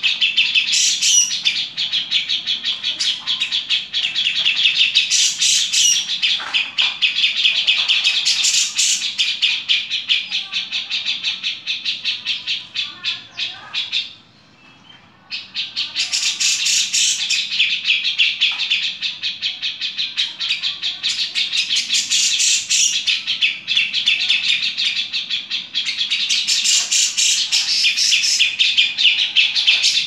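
Grey-cheeked bulbul (cucak jenggot) giving its harsh song, a rapid, unbroken stream of scratchy notes, with one pause of about a second and a half around the middle.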